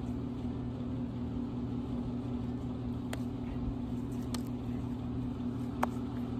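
A steady low mechanical hum, like an idling engine or a running machine, holds throughout. A single sharp slap to the face sounds near the end.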